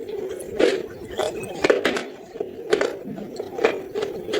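Close-miked crunching of brittle clay-pot pieces being chewed: sharp cracks at uneven spacing, about one a second.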